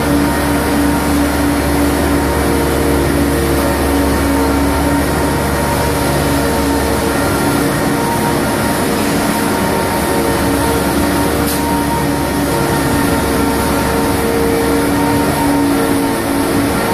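Heavy hydraulic lifting machinery running steadily: a constant hum with several steady whining tones. The deepest part of the hum eases off about seven seconds in.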